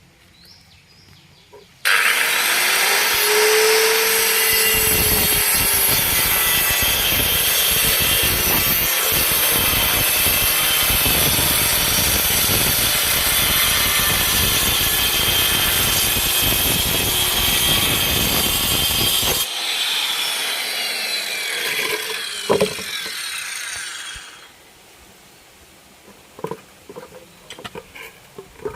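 Circular saw starting up and cutting through a sheet of plywood for about seventeen seconds, loud and steady. Near the end of the cut the sound drops, and the blade runs on and winds down with a falling whine, with a single knock along the way.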